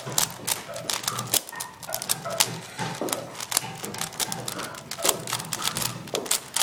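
Plastic 4x4 speed cube being turned rapidly by hand: a quick, irregular run of clicks and clacks as its layers snap round.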